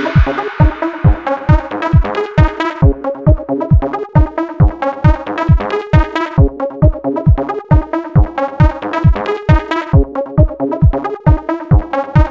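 Background electronic dance music with a steady kick-drum beat, about two and a half beats a second, under a repeating melody.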